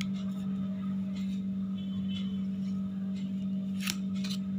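A steady low hum runs throughout, with a few faint scrapes and a short click about four seconds in.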